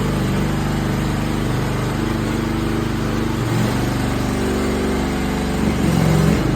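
Komatsu excavator's diesel engine running under work, a steady pitched drone whose note shifts about three and a half seconds in and grows louder near the end.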